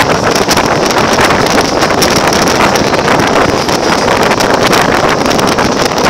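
Wind buffeting a microphone held out of a moving passenger train's window, over the steady running noise of the carriages on the rails.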